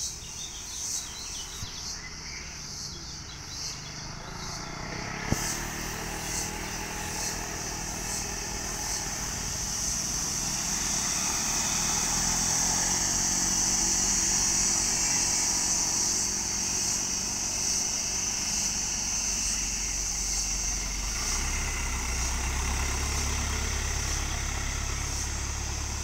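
Traffic on a mountain hairpin road: motorcycle and small truck engines passing. A deep diesel truck engine grows louder about three quarters of the way through. Insects buzz steadily in a high shrill band underneath.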